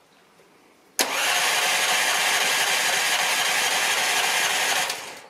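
Predator 420cc single-cylinder engine cranked over by its starter motor with a compression gauge in the spark plug hole, so it turns but does not fire: a compression test. The cranking starts abruptly about a second in, runs steadily for about four seconds and stops near the end; the gauge reads about 60 psi, which sounds really low.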